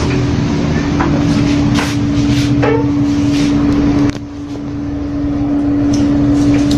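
Steady machine hum with a constant low tone, dipping briefly about four seconds in before building back up, with a few faint clicks over it.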